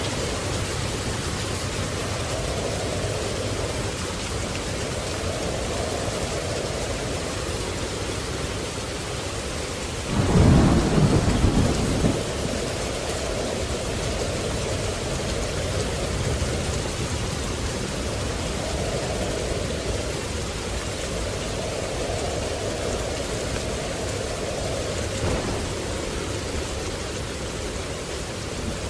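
Steady rain falling, with one loud thunder clap and rumble about ten seconds in that lasts about two seconds.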